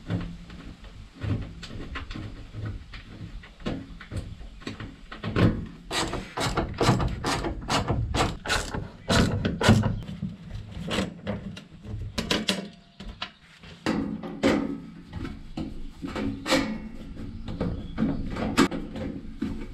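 Irregular knocks, clicks and clunks of hand tools and metal parts as someone works on a fitting bolted to the side wall of a van.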